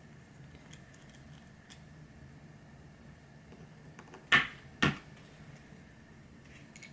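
Quiet room tone with a faint steady hum, broken about four seconds in by two sharp knocks half a second apart, from things being handled.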